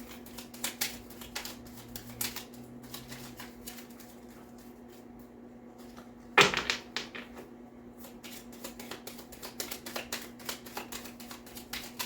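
Tarot cards being handled: quick, irregular snaps and flicks of cards being shuffled and dealt, with one louder sharp knock about six seconds in.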